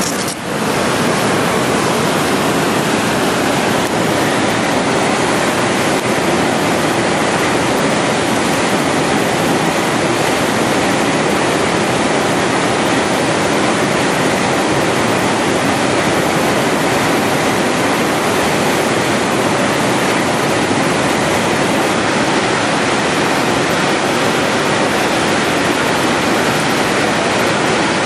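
Rushing creek water running over rocks and rapids: a steady, loud, even rush that does not change.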